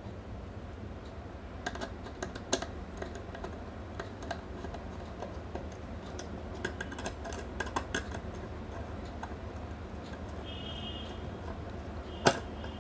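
Scattered small clicks and taps from connecting speaker wires to the screw terminals of an amplifier board, with a brief high tone about two seconds before the end and one sharp click near the end.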